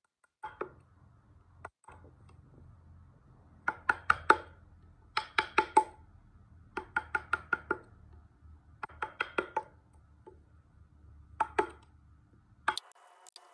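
Chisel being struck into wood in quick bursts of light blows, five to seven taps in each burst with short pauses between, as the carving is worked.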